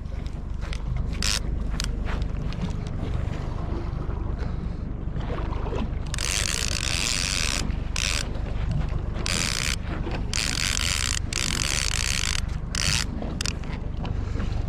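Steady low rumble of a fishing boat under way, with wind and water noise. In the middle comes a run of loud rasping, hissing bursts, each up to about a second and a half long.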